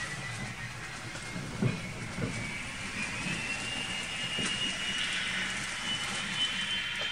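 N-scale model train running on its track: the electric motor's whine climbs steadily in pitch over a hiss of wheels on rail, with a few light clicks.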